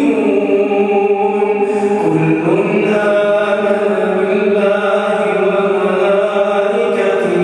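A man's voice reciting the Quran in a melodic, drawn-out tajweed style into a microphone, holding long notes. The pitch rises about two seconds in.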